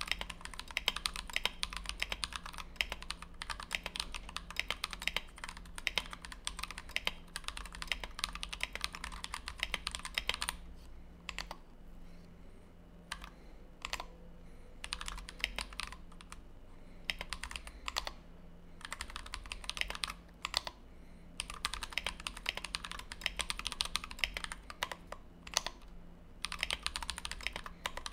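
Fast touch-typing on a Tofu 60 mechanical keyboard with a brass plate, lubed and filmed Everglide Dark Jade switches and PBT OEM-profile blank keycaps: a dense, quick run of keystrokes. About ten seconds in it thins to a few scattered keystrokes for several seconds, then the fast typing resumes.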